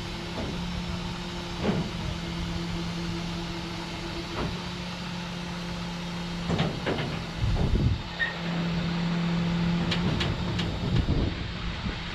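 Lowboy equipment trailer's ramps being raised, over the steady hum of the running truck and its hydraulics. Several metal clanks and knocks sound, loudest about seven to eight seconds in, with sharper clicks a few seconds later.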